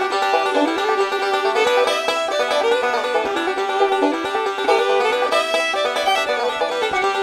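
Background instrumental music with fast plucked-string notes.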